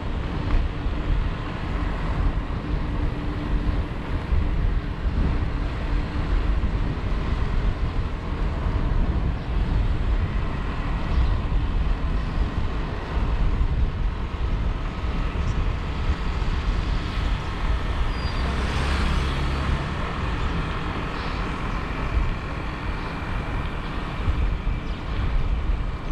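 Steady road and wind noise from riding a bike along a road, with traffic. A louder rush swells and fades about two-thirds of the way through.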